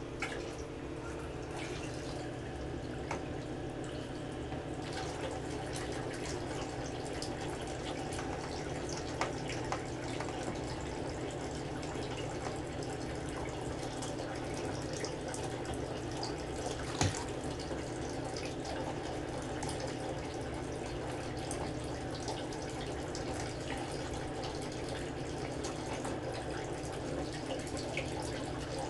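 Water running and dripping steadily in a bathtub, with small splashes and a faint steady hum underneath. A single sharper knock comes about two-thirds of the way through.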